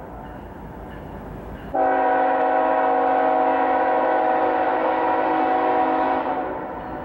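CSX freight locomotive's air horn sounding one long chord, starting suddenly about two seconds in, holding for about four seconds, then fading.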